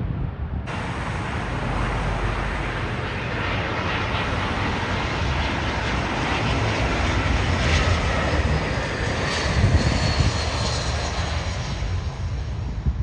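Jet airliner engines passing overhead, a steady rushing roar with a faint high whine, growing louder to a peak about two-thirds of the way through and then easing slightly.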